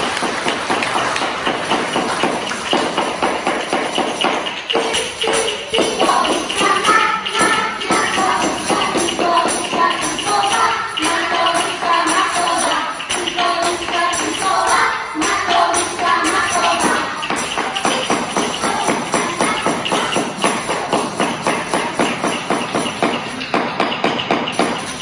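Music with a fast, steady beat, with a melody running through its middle part.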